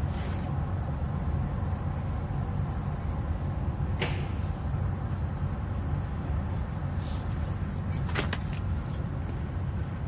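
Steady low rumble with a few sharp clicks and snaps, one about four seconds in and a cluster around eight seconds, as a hand tool works at the removed leather seat upholstery.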